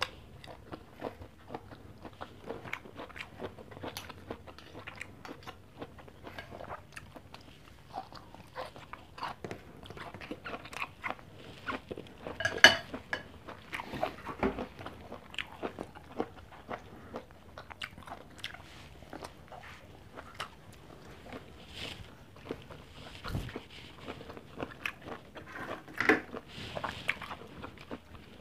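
Close-miked eating sounds: repeated crunching bites and chewing of rice, string beans and fried pork chop eaten by hand, with many small clicks and mouth sounds. A sharp, louder click about halfway through.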